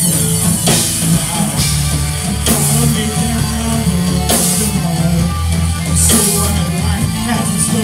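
Live rock band playing: distorted electric guitar, bass and drum kit, with cymbal crashes landing about every two seconds over a steady bass line.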